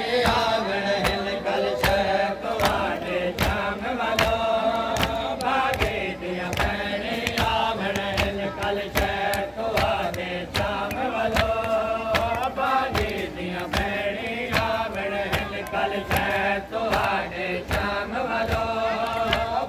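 A noha, a Shia lament, chanted into a microphone in long held lines, over a steady beat of matam: mourners' hands slapping their chests in time.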